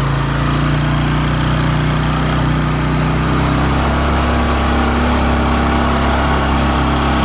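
Four-wheeler (ATV) engine running steadily under way, heard from on board; its note shifts a little past halfway through.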